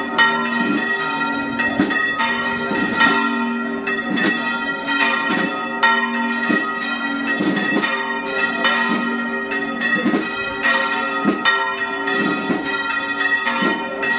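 Church bells ringing a peal: several bells of different pitch struck in quick succession, about two strikes a second, each ringing on under the next.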